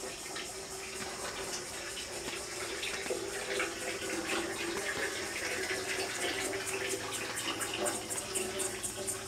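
Outdoor evening ambience of insects: a steady high buzz and rapid, evenly pulsed chirps that grow denser and stronger in the second half, over a constant hiss.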